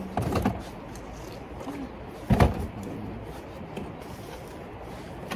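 Coleman dome tent's fabric rustling as it is pulled and fitted into place, with one sharp thump a little over two seconds in.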